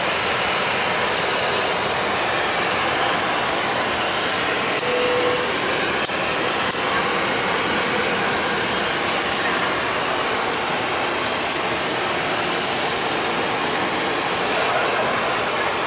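Steady rushing air noise on the flight deck of a Boeing 737-800 parked at the gate, from its air-conditioning and cooling fans, even and unbroken throughout.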